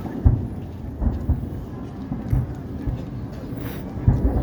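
Aerial fireworks booming: an irregular string of low, deep bursts, sometimes two in quick succession, over a steady low rumble.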